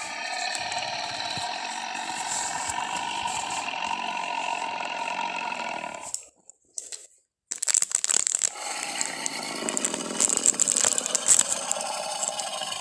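Dinosaur roar sound effect for Gorosaurus, made from Torvosaurus sounds: a long raspy roar of about six seconds, then after a short break a second raspy roar with a harsher, crackling start.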